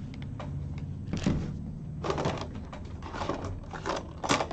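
Irregular small clicks, taps and scrapes of craft pieces and tools being handled on a tabletop, with the sharpest click near the end, over a steady low hum.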